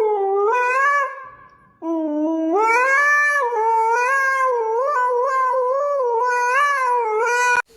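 A dog howling in long wavering calls: a short howl, a brief break about a second in, then one long howl that runs about six seconds and cuts off suddenly.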